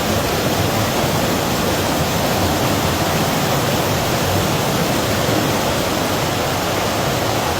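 Floodwater rushing after heavy rainfall: a loud, steady, unbroken noise of running water.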